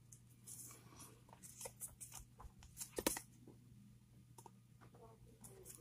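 Baseball cards handled and flipped one by one: faint papery rustles and card-edge flicks every second or so, the loudest about three seconds in.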